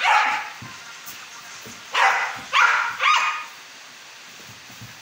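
A five-month-old puppy barking: one loud bark at the start, then three in quick succession about two seconds in.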